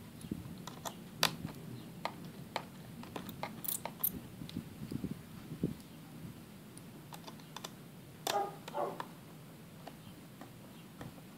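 Small irregular clicks and ticks of a small Phillips screwdriver and metal screws being worked out of the battery bay of a 2007 white MacBook.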